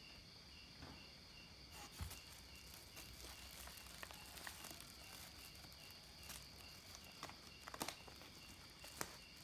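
Faint crackles and clicks of a black plastic mailer bag and its packing tape being picked at with the fingers, over a low steady hiss.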